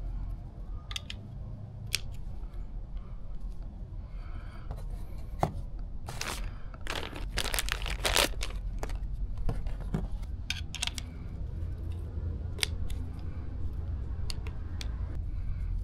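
Gloved hands handling small plastic fuel-line fittings and their plastic parts bag: the bag crinkles and rustles, and the parts click and tap as they are picked up and set down on a board, with a denser run of rustling about six to eight seconds in. A steady low rumble runs underneath.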